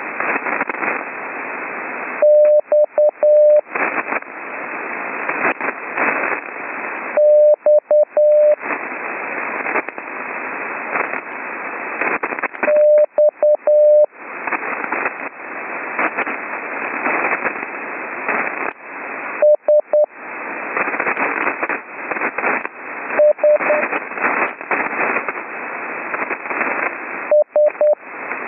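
Slow Morse code (CW) practice letters from the group A, X, S, E, T, received as a steady tone of about 600 Hz through an HF receiver. One character comes every few seconds, six in all, with long gaps. Loud hiss and static crackle fill the gaps: band conditions made rough by a lightning storm. The noise dips each time the tone keys on.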